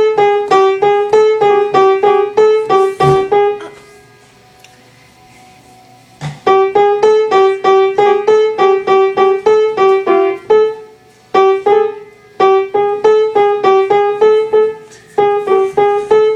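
Piano playing a homemade ringtone: a quick figure rapidly alternating between two close notes, about four notes a second, repeated in short phrases. There is a longer pause about four seconds in and brief breaks near eleven and fifteen seconds.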